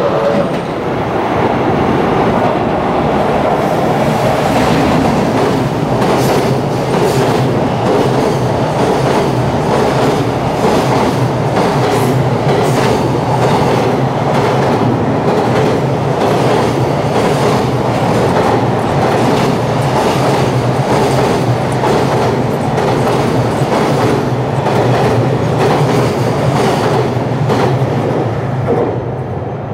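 Long container freight train running through the station on the nearest track: a steady loud rumble and clatter of wagon wheels on the rails with frequent sharp clicks, dropping away just before the end as the last wagon passes.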